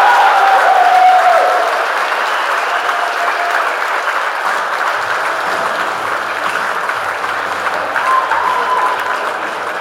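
Audience applauding in a large hall: dense, steady clapping that is loudest in the first second or so, then eases off a little and carries on.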